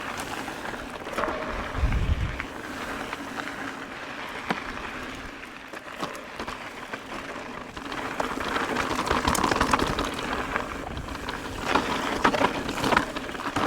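Ibis Ripmo mountain bike rolling fast down a dirt trail: tyres running over sand and gravel, with scattered clicks and knocks as the bike rattles over rocks and a dull thump about two seconds in. Wind noise runs underneath.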